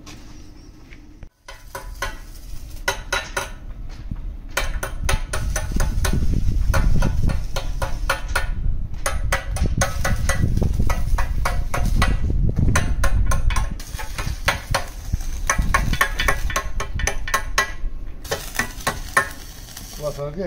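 Electric arc welding on a small steel box: dense, rapid crackling and sizzling in several runs with short breaks between them.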